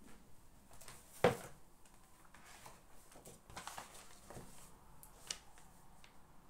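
Small handling sounds of someone working at a desk: a sharp knock about a second in, a stretch of soft rustling, and a lighter click near the end.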